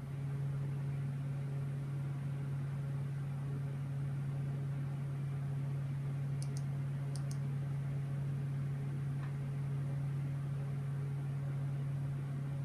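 Steady low hum over faint room hiss, with two pairs of short, sharp high clicks about halfway through.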